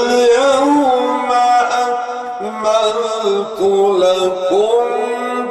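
A man chanting in long, held, slowly bending notes, with a drop in pitch partway through. This is the drawn-out melodic delivery of sung Islamic religious recitation.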